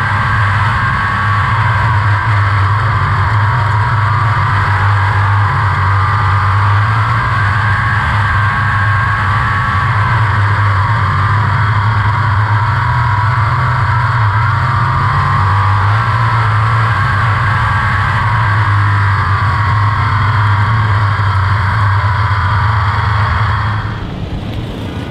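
360 sprint car V8 running at racing speed, heard on board the car, a steady loud drone held through the laps; it drops away shortly before the end.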